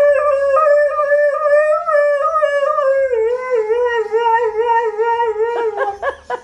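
Siberian husky howling: one long howl that holds steady for about three seconds, then drops lower and wavers in pitch, breaking up near the end.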